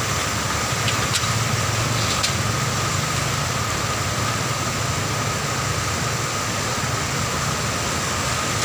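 Floodwater rushing steadily over a broken road edge in a wide cascade, with a truck's engine running low as it drives slowly through the flood.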